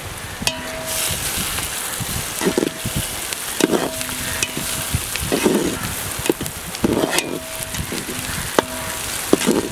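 Chopped onions sizzling in oil in a large aluminium pot, stirred with a metal spatula that scrapes and knocks against the pot every second or two, the pot ringing briefly after some knocks.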